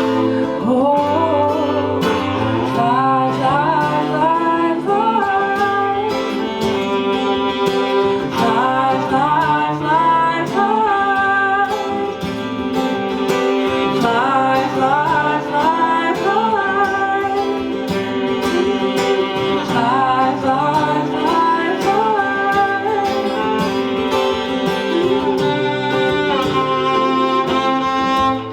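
Cello and acoustic guitar playing an instrumental passage of a song. The cello carries a wavering, gliding melody over steady guitar strumming.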